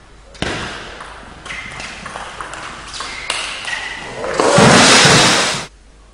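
Table tennis rally: the ball clicks sharply, again and again, off the paddles and the table in a fast exchange. About four seconds in comes a loud burst of spectator cheering and applause lasting about a second and a half, cut off abruptly.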